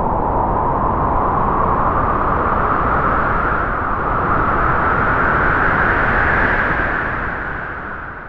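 A spooky sound effect: a long, noisy rushing sound with no clear pitch that slowly rises, then fades out near the end.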